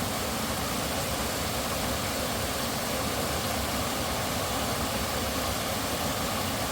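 Steady rushing of a creek's flowing water, an even noise with no breaks.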